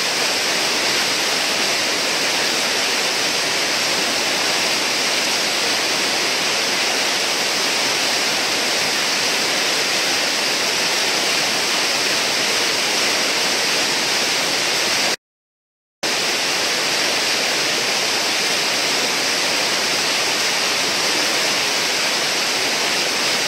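Whitewater churning through a river hole, a steady rushing roar of foaming water. The sound cuts out completely for under a second about two-thirds of the way in, then returns unchanged.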